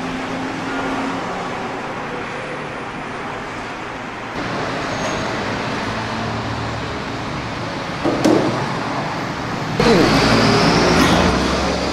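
Stainless steel parts of a gas boiling top being handled: metal scraping and clattering as the lid and pan-support grate are lifted off and set down, twice in the second half, the later time louder. Under it runs a steady noisy hum.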